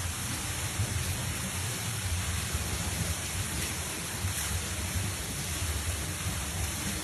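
Steady rushing noise of water, even and unbroken, with a low rumble underneath.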